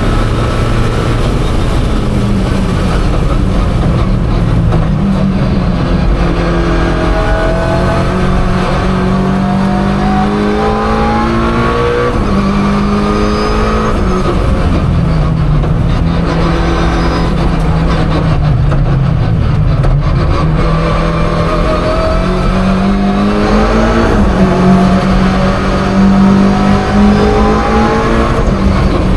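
Mitsubishi Lancer Evolution IX's turbocharged four-cylinder engine driven hard. Its revs climb in long sweeps and drop back at each gear change, again and again.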